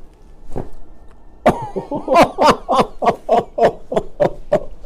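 A quick crack from a chiropractic neck adjustment, then a man laughing in a rapid run of about a dozen short bursts, three or four a second.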